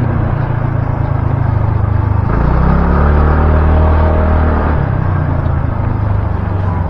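Motorcycle engine running steadily while riding, its low note shifting a couple of times.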